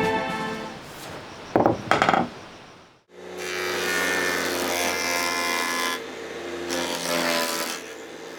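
A few plucked music notes die away, then after a sudden cut a power tool runs steadily as it cuts wood, with a low even hum under the cutting noise. It eases off briefly about six seconds in.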